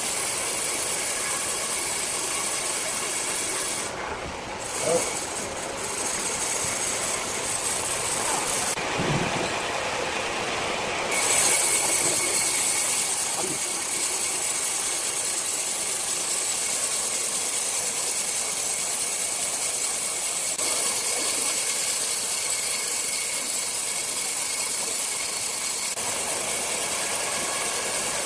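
Large sawmill circular saw running with a steady high hiss; its sound dips briefly a few seconds in and grows louder just before the middle.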